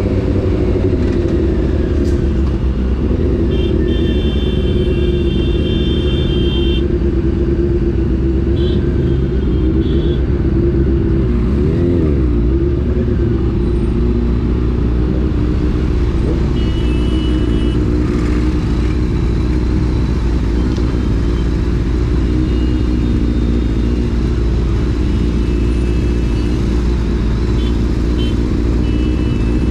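Honda CBR600 F4 inline-four engine running steadily under way, its pitch briefly rising and falling about halfway through. Other vehicles' horns honk several times in the traffic around it.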